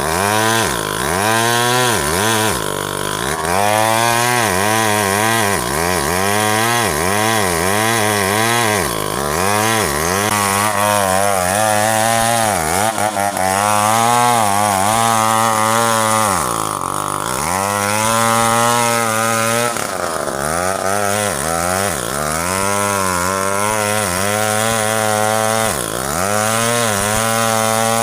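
Two-stroke chainsaw running hard as it cuts into ironwood, the engine note dipping and recovering over and over as the chain bites, with a few deeper drops in revs.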